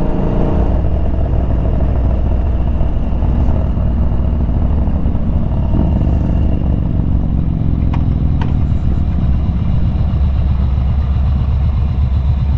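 Yamaha Bolt's air-cooled V-twin engine running as the motorcycle cruises. The engine note eases down from about six seconds in as the bike slows.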